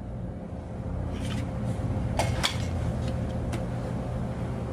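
A few light clicks and taps of a Glock 17 pistol being handled, over a steady low hum.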